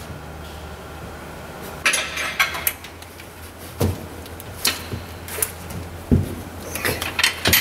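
Wrenches clinking and knocking on the upper control arm cam bolts of a 2003 Chevrolet S10's front suspension as the bolts are turned for an alignment adjustment and snugged down. There is a quick cluster of knocks about two seconds in, then single knocks about once a second, over a steady low hum.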